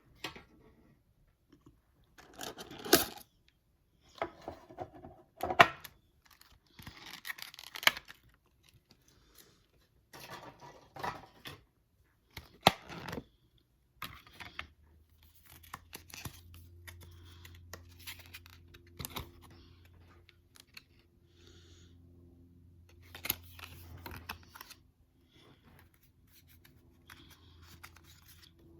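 Trading-card booster pack being opened and handled: the foil wrapper crinkling and tearing in irregular bursts, with cards rustling and tapping. From about halfway a faint steady low hum runs underneath.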